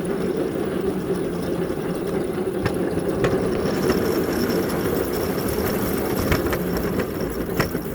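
Small engine of a backyard ride-on locomotive running steadily, with a few sharp clicks and knocks. A faint high whine joins about halfway through.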